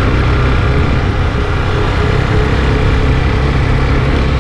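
Yamaha motorcycle engine running steadily under way, with wind rush over the microphone.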